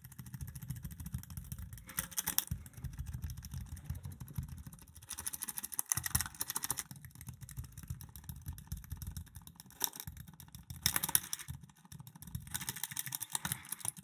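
A steel lock pick scraping and clicking against the sliders inside a Capstone 12-slider bike lock's keyway, in irregular bursts of small clicks. The sliders are being raked at random under light tension to set them one by one. A low rumble runs underneath.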